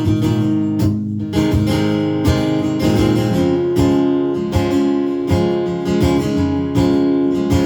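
Acoustic guitar strumming chords in an instrumental passage between the sung lines of a song.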